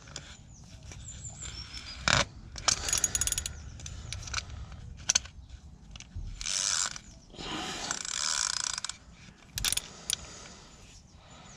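Hand socket ratchet clicking in short bursts as it tightens a cartridge-type oil filter housing cap through a cap wrench, with a few sharp knocks of the tool.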